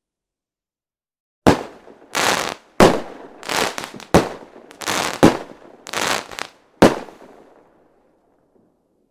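Fireworks going off: five sharp bangs about a second and a half apart, each followed by a crackling burst. They start about a second and a half in and die away near the end.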